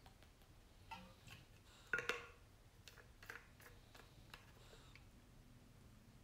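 Faint scattered clicks and light knocks from a water bottle and its plastic cap being handled, with one louder short clatter about two seconds in, against near-silent room tone.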